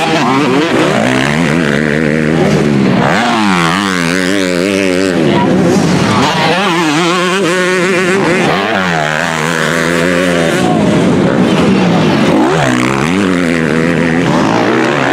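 Motocross dirt bike engines revving hard as the bikes race past, their pitch rising and falling again and again, with more than one engine often heard at once.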